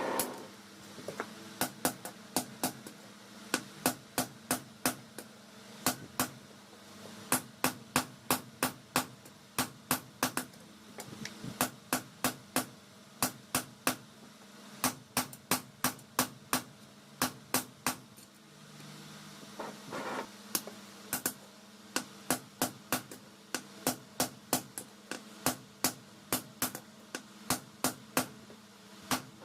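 Hammer blows ringing on steel, in runs of about two to three strikes a second with short pauses between runs, as car leaf-spring steel is forged into a blade. A steady low hum runs underneath.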